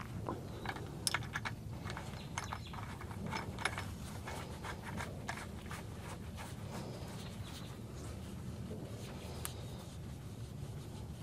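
Light scattered clicks and taps of small metal hardware being handled by hand while a new truck shock absorber's lower bushing and nut are fitted, over a low steady background rumble. The clicks are thickest in the first few seconds and thin out after that.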